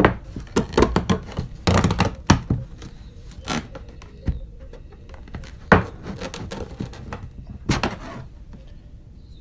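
Clear perspex sheet knocking and scraping against a painted frame as it is pressed and wiggled into place, an irregular string of sharp knocks and clatters, densest in the first two seconds or so and then a few single knocks. The sheet is binding in the opening, which the maker puts down to the paint narrowing it.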